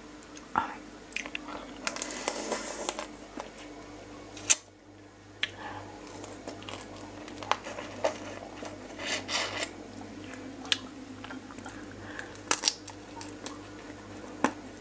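Close-up eating sounds of raw fish-sauce-pickled blue swimmer crab: shell cracking and crackling as it is pulled apart by hand, with wet squishing as the meat is sucked and chewed. One sharp crack stands out about four and a half seconds in, over a faint steady hum.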